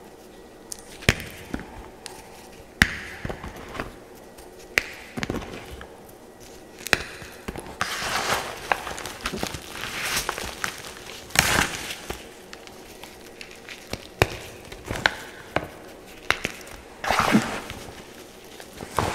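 Blue gym chalk and cloud soap crushed and crumbled by hand, with irregular sharp cracks and snaps. Longer stretches of crunching come a little before halfway through and again near the end.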